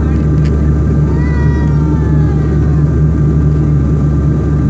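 Jet airliner engines running at takeoff power: a steady heavy rumble with a steady high whine over it. About a second in, a single long, high cry glides up slightly and then falls away.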